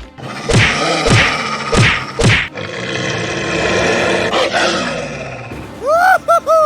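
Edited soundtrack of background music with four short growling sound effects about half a second apart in the first two seconds, then a high, sped-up cartoon-style voice gliding in pitch near the end.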